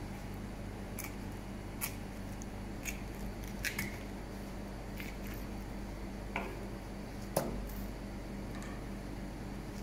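Boning knife cutting and scraping along the bone of a raw wild boar leg on a plastic cutting board: scattered short clicks and ticks, about seven, the sharpest a little after seven seconds in. A steady low electrical hum runs underneath.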